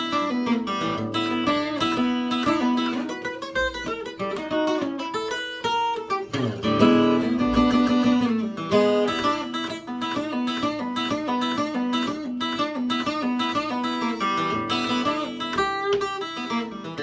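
Eastman E20OOSS/V-SB acoustic guitar played solo, a continuous run of picked notes and chords ringing over one another.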